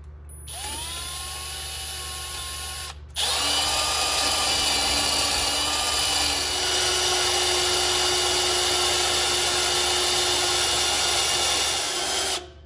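Cordless drill spinning a homemade sandpaper-faced valve cutter through the valve guide, grinding a valve relief into a forged Ford 302 piston top. A short spin-up with a rising whine starts about half a second in. After a brief stop near three seconds, a louder, steady run of about nine seconds with a rough grinding sound follows and cuts off near the end.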